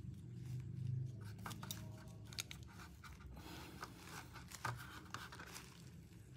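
Faint handling noise: an Apple Watch and its nylon loop band are turned in the hands, giving soft rustles and a scatter of small clicks and taps. A brief low hum is loudest about a second in.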